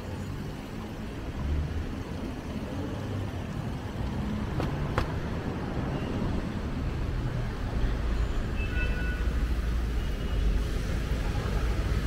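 Street ambience with road traffic: a low rumble of vehicles that grows louder in the second half, with a faint click about five seconds in.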